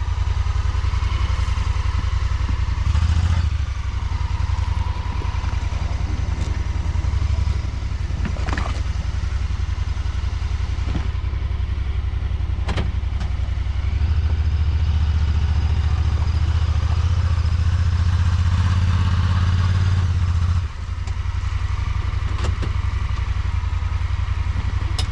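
Side-by-side UTV engine running as it drives, towing the jon boat on its trailer; a loud low engine note whose level steps up and down with the throttle, dropping suddenly about twenty seconds in.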